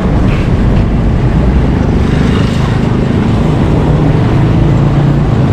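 Steady road traffic noise from passing cars and motorbikes, under a heavy low rumble.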